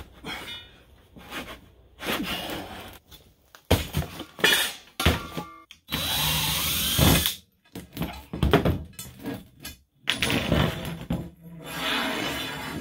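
Cordless drill running in several short bursts at a screw in the bench top, the longest and loudest about six seconds in, with knocks and scrapes of bent steel tubing on the table between bursts.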